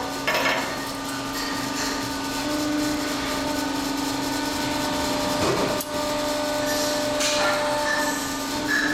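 Steady hum of a workshop machine running, with a few metal clinks and knocks as a steel rebar coupler sleeve and its steel ring are handled and set into a steel jig.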